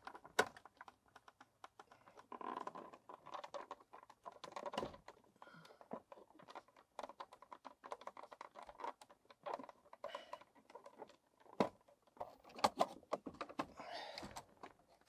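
Hands working plastic wiring plugs loose behind a Citroën DS instrument panel: irregular light clicks, scrapes and rustles of plastic and wiring being handled.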